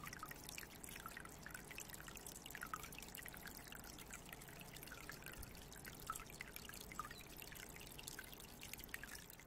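Faint dripping and trickling water, with scattered single drops plinking now and then.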